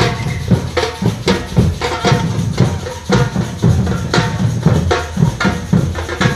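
Music with loud drumming: sharp drum strikes about three a second over a deep, full low end.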